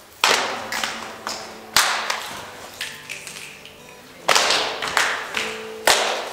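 A group of singers clapping a rhythm together: four loud claps with softer claps between them, echoing in the hall. Faint held notes sound underneath.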